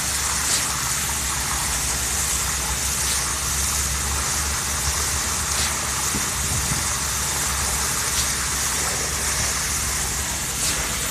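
Concrete pump running steadily at a construction pour, with a faint knock about every two and a half seconds, the rhythm of the pump's piston strokes pushing concrete out through the boom hose, over a steady hiss.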